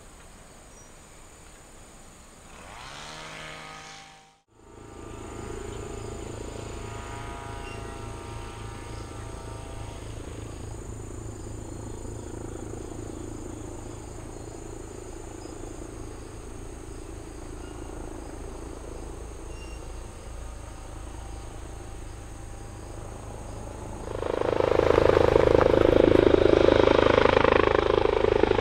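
Helicopter approaching to land, its rotor beat and engine a steady distant thrum that grows sharply louder near the end as it comes close. Insects are chirring underneath.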